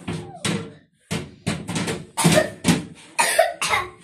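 A person coughing repeatedly: a rapid series of short coughs, with a brief break about a second in.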